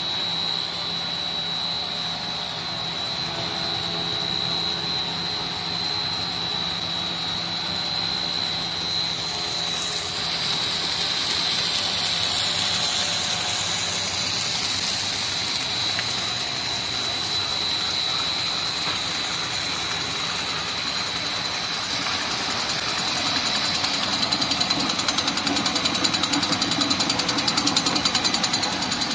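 Snack-food processing machinery running steadily, with a constant high whine over a broad mechanical hum. In the last few seconds a fast, even rhythmic chatter comes in louder.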